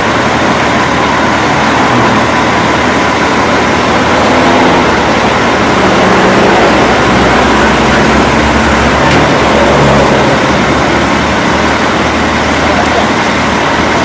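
Bus engine running steadily at idle, under a loud, even wash of noise.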